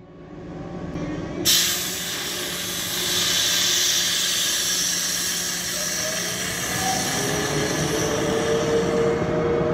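CP class 5600 electric locomotive moving off with a train of passenger coaches. A loud hiss starts abruptly about a second and a half in and carries on, and in the second half a whine rises steadily in pitch as it picks up speed.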